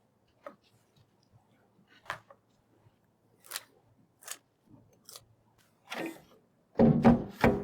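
Small clicks and taps from computer parts being handled during a PC build, one every second or so, then a louder cluster of knocks near the end.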